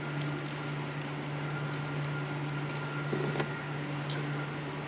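Steady hum of an indoor shooting range's ventilation, with a couple of faint clicks about three seconds in.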